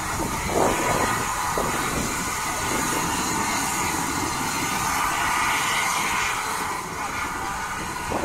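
Rebuilt West Country class steam locomotive 34028 Eddystone moving slowly, with a steady hiss of escaping steam and a few short puffs.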